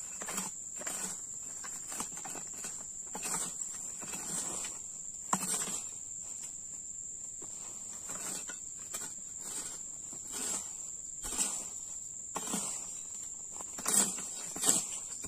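Irregular scraping and chopping strokes of a long-handled weeding tool cutting weeds and soil around the base of an oil palm, a few sharper strokes near the end. A steady high-pitched insect drone runs underneath.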